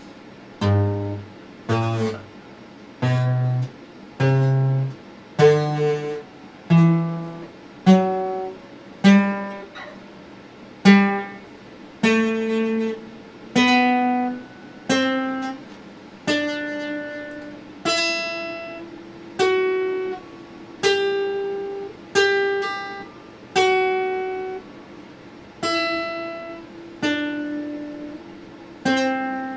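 Acoustic guitar played slowly: one plucked note or chord at a time, each left to ring and fade before the next, about one a second and a bit. The notes climb step by step through the first half and then stay in a higher register.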